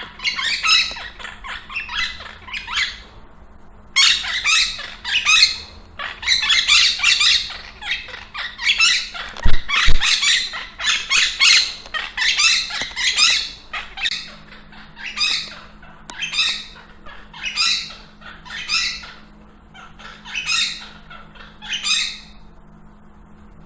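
A caged pet bird squawking over and over in high-pitched screeches, in quick runs at first and then about one call a second towards the end. This is the daily yelling its owner describes. Two low thumps come about ten seconds in.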